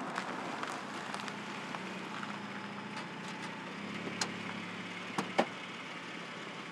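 A car pulling up to the roadside and idling with a steady low hum. A few sharp clicks, the loudest a little after five seconds in, come as a car door is unlatched and swung open.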